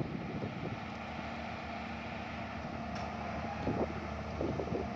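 Komatsu PC200 excavator's six-cylinder diesel engine idling steadily.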